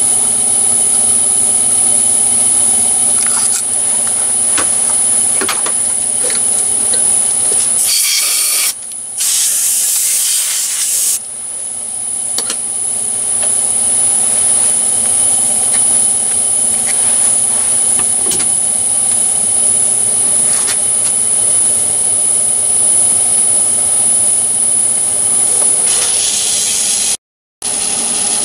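Steady machine hum made of several even tones with a high whine above them. About eight seconds in, two bursts of loud hissing last a few seconds, and a shorter hiss comes near the end.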